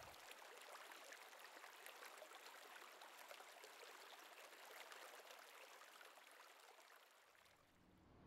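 Faint creek water running over a rock shelf in small riffles, an even hiss that fades away near the end.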